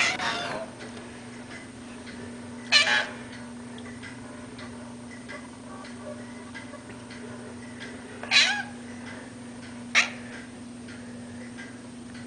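Kitten meowing in four short calls a few seconds apart, over a steady low hum.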